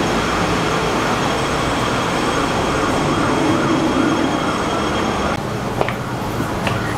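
Busy city street noise: a steady rumble and hiss of traffic with a faint wavering tone in it. The hiss drops away about five seconds in, as the sound moves into an indoor entrance.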